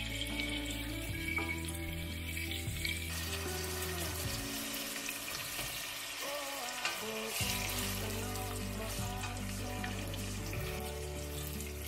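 Butter and sugar sizzling and bubbling in a stainless steel pot, stirred with a wooden spoon, as apple slices are tipped in, under background music with sustained notes.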